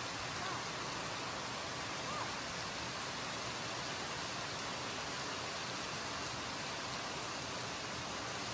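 Heavy rain falling steadily, an even hiss with no change in strength.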